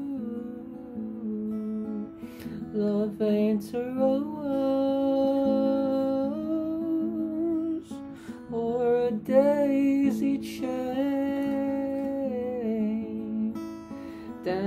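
Acoustic guitar strummed in a slow song, with a wordless vocal melody carried over it.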